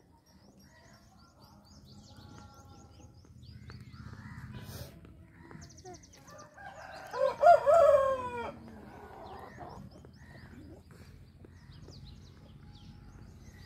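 A single loud farm-animal call, rising then falling, about seven seconds in and lasting about a second and a half, with small birds chirping faintly throughout.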